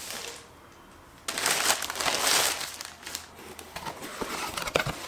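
A plastic courier mailer bag being torn open and crinkled by hand, starting about a second in. It is followed by scattered light knocks and rustles as a cardboard box is handled and opened.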